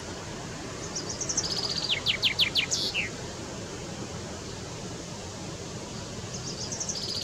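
Male common chaffinch singing: about a second in, a rapid run of notes that steps down in pitch and ends in a short flourish; the next song phrase begins near the end.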